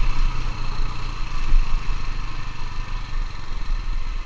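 Motor scooter's small engine running steadily while riding along, with a continuous low rumble.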